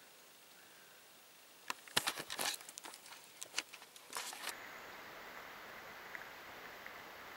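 Handling noise from the camera and clothing: a burst of rustling with sharp clicks and crackles, starting nearly two seconds in and lasting about three seconds, over a quiet woodland background.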